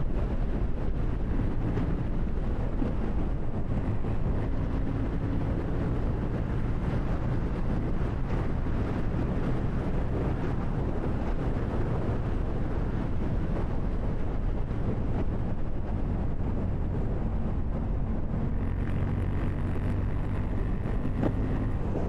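KTM 790 Duke's parallel-twin engine running at a steady, even pitch while riding, with wind buffeting the microphone.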